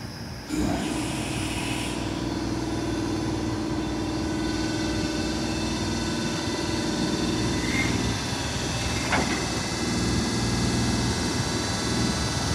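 EF210 electric locomotive humming steadily at a station, the hum switching on abruptly about half a second in and holding one steady pitch; a single sharp click about nine seconds in.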